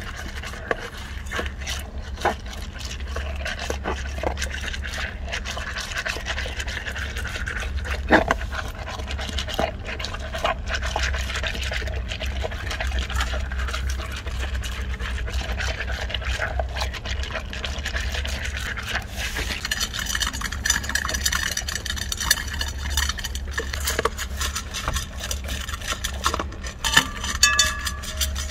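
Labrador retriever crunching dry kibble from a stainless steel bowl, with a dense, irregular run of clicks and crunches as pieces knock against the metal. A steady low hum lies underneath. Near the end a few short ringing tones sound as the bowl is licked nearly empty.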